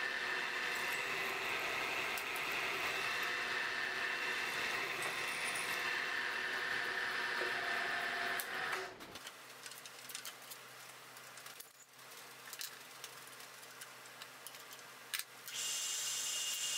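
Bridgeport milling machine running as a twist drill bores holes in a steel angle-plate blank, a steady mechanical run with a faint whine. About eight and a half seconds in it cuts off to a much quieter stretch with small clicks and one sharp tick, and near the end the machine is running again with a higher whine.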